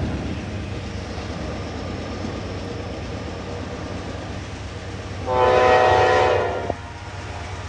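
Norfolk Southern diesel locomotive approaching with a steady low rumble. A little past the middle it sounds one horn blast of about a second and a half, several notes at once, which cuts off sharply.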